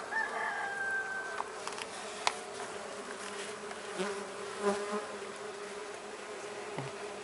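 Mandaçaia stingless bees (Melipona quadrifasciata) buzzing around an opened hive box: a steady hum, with a second, higher-pitched buzz for about the first second and a half. A single sharp click comes a little over two seconds in.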